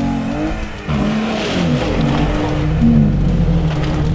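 Jeep Wrangler's engine revving up and down several times while its mud tyres spin in a slick rut: the Jeep has lost traction and stays in place.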